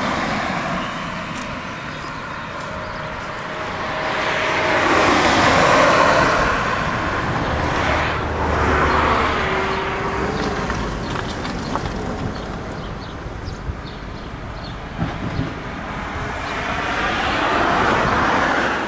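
Road traffic: cars passing by one after another on a street, each one swelling up and fading away, with three or four passes.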